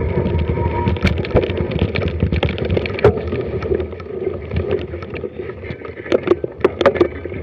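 Mountain bike riding over a wet, leaf-strewn forest trail: tyre noise and wind on the microphone, with sharp rattles and knocks from the bike over bumps, a burst of them near the end.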